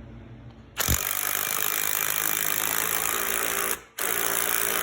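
Power tool driving a 1/2-inch lag bolt to fasten a bench vise to a wooden workbench. It runs in a long burst of about three seconds, stops briefly, then runs again for about another second as the bolt is snugged down.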